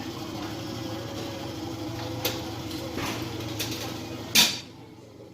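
Buffet dining-room background: a steady hum with a few light clicks and knocks, then one short, loud rush of noise about four seconds in.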